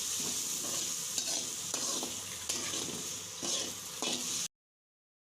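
Onion, tomato and coriander leaves sizzling in hot oil in a pan while a spatula stirs them, scraping the pan about twice a second. The sound cuts off abruptly about four and a half seconds in.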